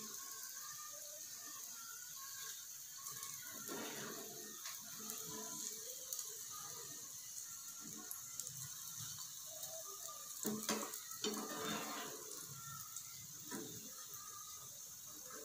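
Gram-flour-coated okra strips deep-frying in hot oil: a faint steady sizzle with small scattered crackles, and a few brief louder knocks about four seconds in and again after ten seconds.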